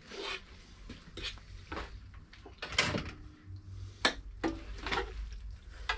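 Metal utensils scraping and clinking against a frying pan as spaghetti is stirred and tossed, in irregular knocks, the loudest about three seconds in, over a low steady hum.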